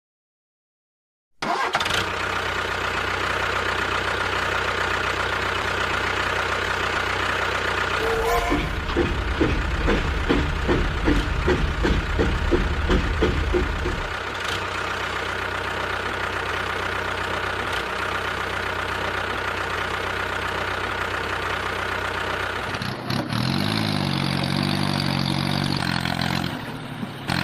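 A motor running steadily, with a steady whine. In the middle it pulses rapidly for several seconds, and near the end it changes to a lower, different-pitched running sound.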